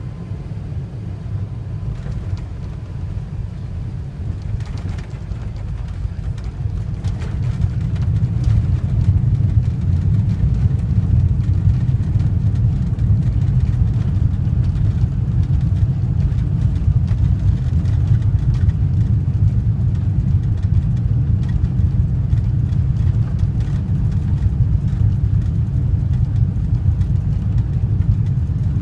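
Airbus A380 landing and rolling out on the runway, heard from inside the passenger cabin: a steady low rumble that grows louder about eight seconds in and then holds, with faint rattling on top.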